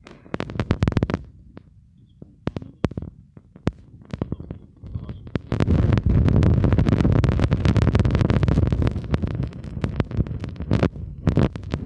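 Close handling noise from a cardboard box being handled right by the microphone: a few clicks and rustles at first, then from about halfway a long stretch of dense, low scraping and crackling that stops near the end.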